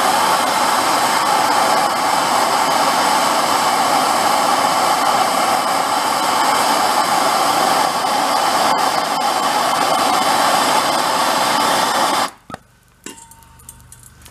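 Oxy-fuel torch flame hissing steadily as it heats a seized valve adjusting screw on a Volkswagen engine's rocker arms. It shuts off abruptly about twelve seconds in, followed by a few faint clicks.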